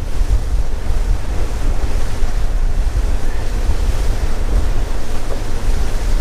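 Strong wind buffeting the microphone on a small boat under way in choppy water: a heavy, uneven low rumble over a steady hiss of wind and water.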